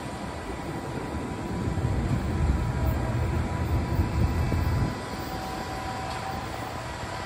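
NJ Transit ALP-45DP locomotive in diesel mode with its coaches rolling away, a low engine and wheel rumble. The rumble swells, then drops off sharply about five seconds in, leaving a quieter steady train noise.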